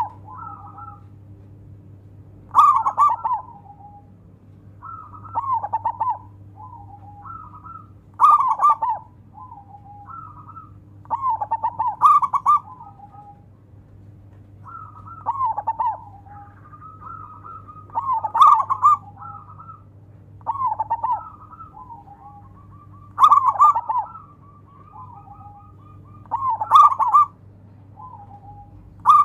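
Local zebra dove (perkutut) singing: a phrase of quick rolling coos repeated about every three seconds, about nine phrases in all. A faint steady low hum lies underneath.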